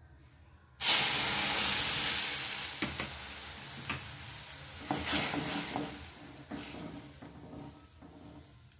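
Milk poured into a hot iron kadhai of ghee-roasted makhana (fox nuts): a sudden loud sizzle about a second in that slowly dies down, with a few knocks of a spoon stirring in the pan.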